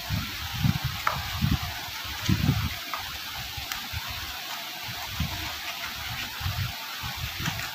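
Cardboard packaging of Truke Buds F1 earbuds being handled and opened by hand: irregular soft bumps and rustles, with a few faint clicks, over a steady hiss.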